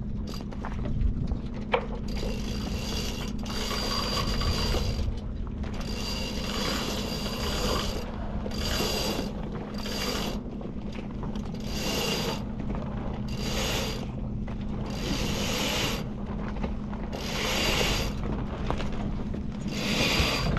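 Sailboat self-tailing winch being cranked with a handle, its pawls ratcheting as a sheet is hauled in. It comes in about ten spells of a second or so each, over a steady low hum.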